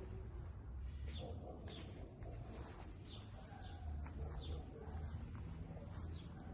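Small birds chirping in short, scattered calls over a low steady rumble.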